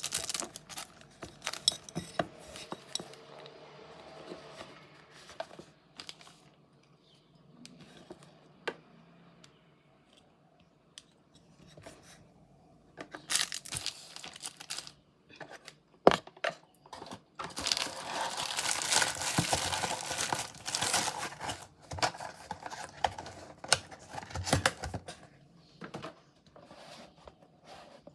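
Packaging being opened by hand: tearing and crinkling, with scattered sharp clicks and knocks. The rustling comes in two denser spells, one brief and one lasting a few seconds, in the second half.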